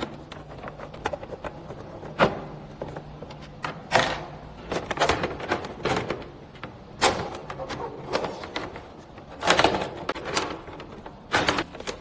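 Plastic control-panel housing being handled while its screws are taken out with a screwdriver: irregular clicks, knocks and rattles of plastic, with several sharper knocks spread through.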